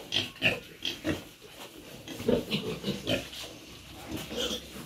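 A sow and her piglets in a pen, giving short, irregular grunts and calls one after another.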